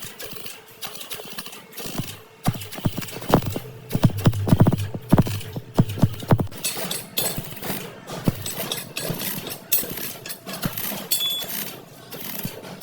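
Irregular hammer knocks on car body sheet metal, densest from about two to seven seconds in, then lighter clatter.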